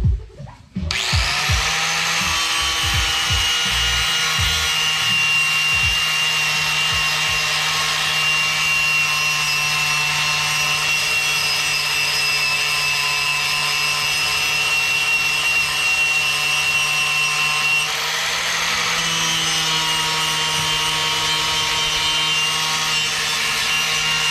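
Electric power tool with a polishing wheel spinning up about a second in, then running steadily while it rubs against the metal fuel filler tube; its pitch dips briefly and comes back up near the end.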